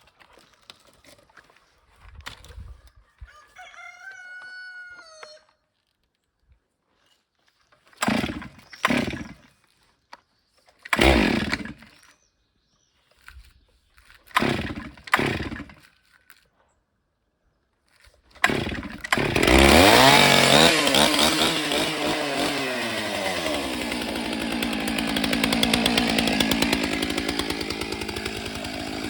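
A rooster crows once about three seconds in. Then a Stihl MS 881 two-stroke chainsaw gives several short bursts while it is being started, catches about 18 seconds in and revs. It runs on continuously, its pitch sagging and recovering as it cuts into the log.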